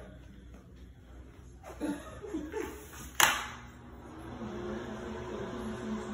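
Soft chuckling and low voices, with one sharp click about three seconds in, followed by a steady low hum.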